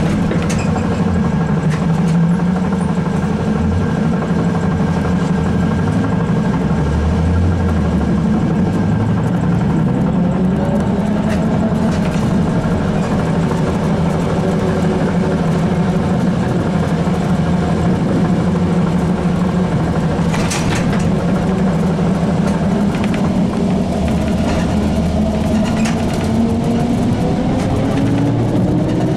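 ZiU-682 trolleybus under way: a steady traction-motor hum over road and tyre noise. The motor's pitch climbs as the trolleybus gathers speed about ten seconds in and again near the end. There are a couple of short knocks, one about twelve seconds in and one about twenty seconds in.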